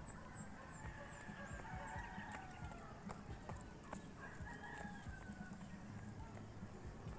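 Roosters crowing, one crow about two seconds in and another about four and a half seconds in, with a quick run of high chirps near the start.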